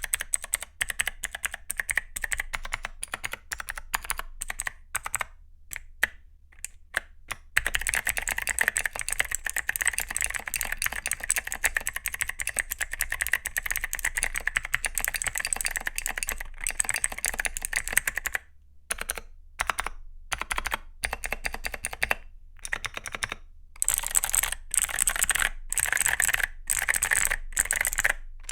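Typing on a Zuoya GMK87 mechanical keyboard with Akko Creamy Cyan clicky switches and XDA-profile PBT keycaps: sharp clicks with spring ping, the sign of stock switches not yet lubed or tuned. Separate keystrokes at first, then fast continuous typing from about eight seconds in, with short pauses and more bursts of typing later.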